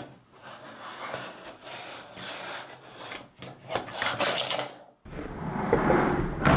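Hands working a plastic Play-Doh Can Heads Hulk toy: rubbing with scattered clicks and knocks of hard plastic. About five seconds in, a louder, duller noisy sound starts abruptly.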